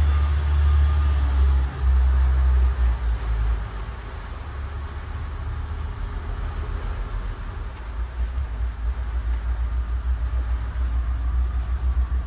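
Twin Volvo Penta KAD300 diesel sterndrives running under way at speed, heard from the helm as a deep steady rumble. The rumble drops noticeably about three and a half seconds in, then slowly builds again.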